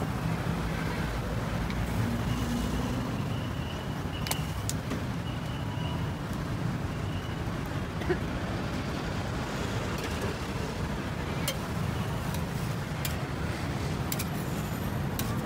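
Steady low rumble of street traffic, with a few sharp clicks scattered through it.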